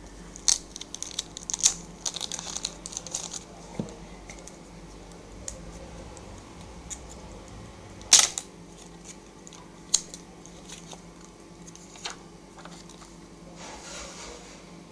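Hand-handling noise: plastic packaging crackling in a quick run of crisp clicks for the first few seconds, then a few separate sharp clicks and taps as the plastic-bodied Samsung Galaxy S3 phone is picked up and turned over, the loudest about eight seconds in.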